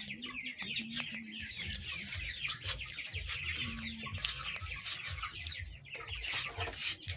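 A flock of chickens clucking and peeping, with short scraping strokes and clicks from a knife working the sap off an aloe vera leaf.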